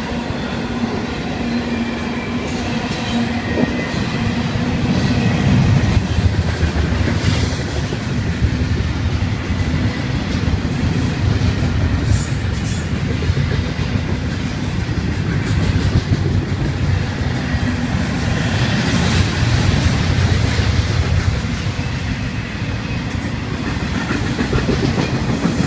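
Double-stack intermodal freight cars rolling past at speed: a steady, loud rumble of steel wheels on rail that holds through the whole pass.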